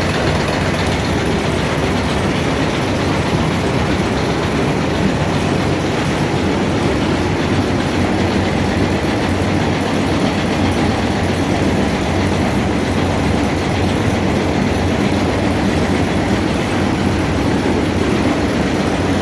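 Tobacco leaf shredding machine running steadily: a loud, unchanging mechanical noise with a low hum underneath.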